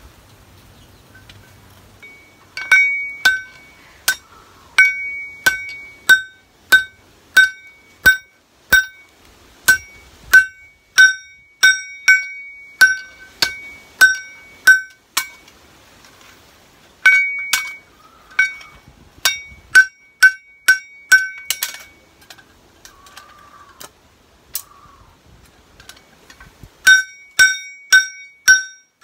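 Hand hammer forging a kitchen knife blade on a steel-block anvil, steady ringing metal-on-metal blows at a little under two a second. The hammering stops twice for a few seconds and then resumes.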